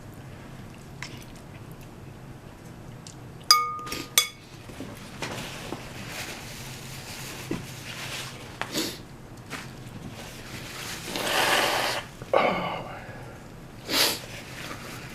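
A utensil clinks twice against a dish, the first clink ringing briefly, then several loud sniffs spread through the rest, the longest about three quarters of the way in, from a nose running on Carolina Reaper hot sauce.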